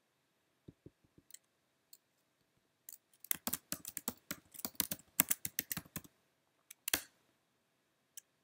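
Typing on a laptop keyboard. A few scattered key taps come first, then a quick run of keystrokes lasting about three seconds, then a single louder click about seven seconds in.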